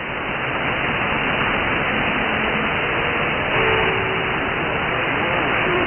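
Steady hiss and static from a radio receiver tuned to an empty channel while a reply is awaited, narrow-band and cut off above about 3 kHz. Faint wavering tones of a weak, distant signal rise out of the noise near the end.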